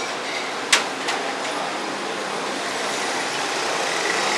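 Steady road traffic noise from cars and motorcycles passing on a street, with a single sharp clink about three-quarters of a second in.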